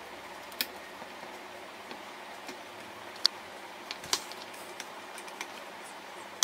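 A few scattered sharp clicks and taps from hands handling the Arduino CNC shield and its USB cable, over a steady faint hiss.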